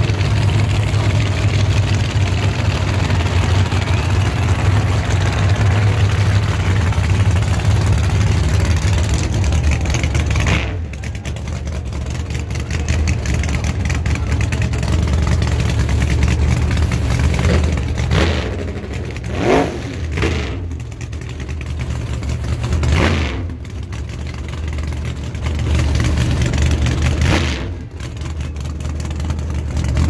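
Drag-racing car engines idling with a deep, loud rumble. The rumble drops a little about a third of the way in, then three sharp throttle blips rise and fall in the second half.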